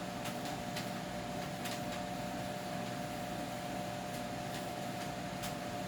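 A steady mechanical hum, with a few faint light clicks.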